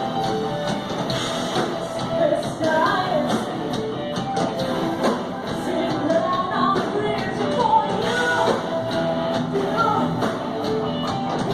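A rock and roll song: a voice sings a melody over a steady band accompaniment that includes guitar.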